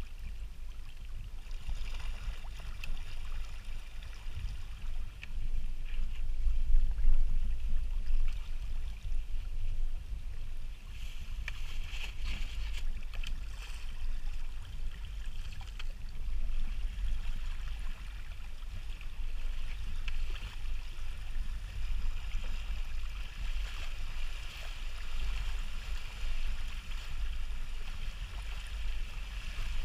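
Water gurgling and washing along the hulls of a Hobie Tandem Island sailing trimaran under way, with a low wind rumble on the microphone.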